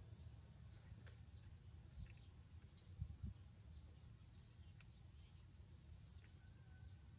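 Faint, short, high chirping calls, about one or two a second, over a low rumble, with two soft thumps about three seconds in.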